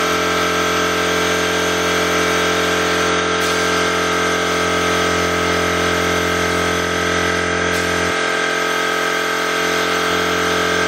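Gravity-feed paint spray gun spraying primer, its air hiss over the steady hum of a motor running. The hiss shifts slightly a few times and the low hum drops about eight seconds in.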